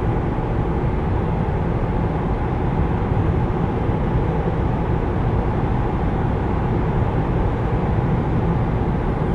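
Cabin noise inside a 2016 Renault Espace cruising at about 100 km/h: steady low road and wind noise.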